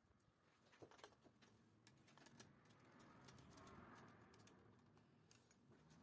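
Near silence with many faint, scattered clicks from hands handling a wire and fitting it into a limit switch's terminals.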